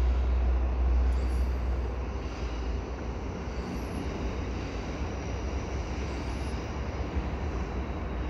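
Ex-GO Transit EMD F59PH diesel locomotive approaching at the head of a commuter train: a steady rumble of its engine and its wheels on the rails, with a deep low rumble that fades over the first couple of seconds.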